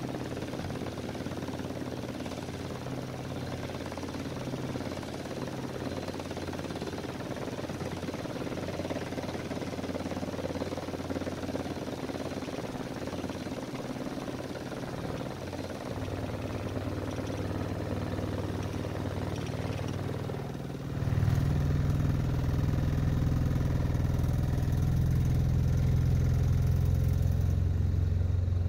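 Older vehicle's engine idling as it warms up after a cold start, heard from inside the cab. About two-thirds of the way through it suddenly gets louder, with a stronger, deeper hum, and holds there.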